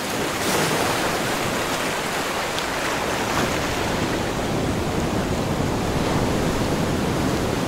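Ocean surf rushing steadily, an even noise without breaks.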